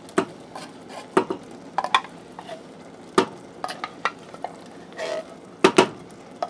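A wooden spoon knocking and scraping in a saucepan as condensed cream of chicken soup is worked into sautéed mushrooms and onions, with a faint sizzle from the pan. The knocks come irregularly, with two sharp ones close together near the end.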